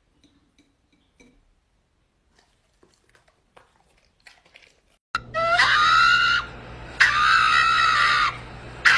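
A pug gives long, high-pitched, scream-like howls, three in a row beginning about five seconds in, over a steady low hum. Before them there are only a few faint clicks.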